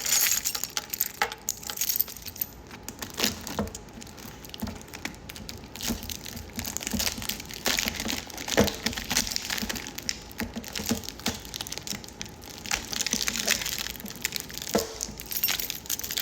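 Metal watches clinking and rattling against each other as they are handled and sorted, a run of irregular sharp clinks.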